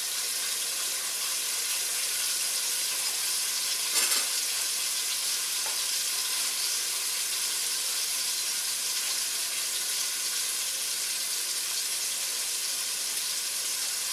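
Flour-dredged chicken breast frying in extra virgin olive oil in a stainless steel pan: a steady sizzle. A brief knock stands out about four seconds in.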